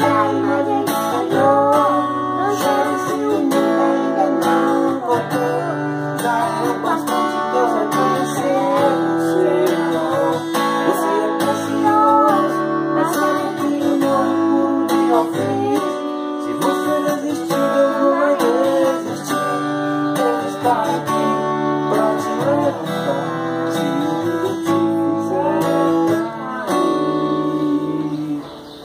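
Acoustic guitar strummed in steady chords while a boy and a man sing a gospel song together in Portuguese; the music winds down and stops near the end.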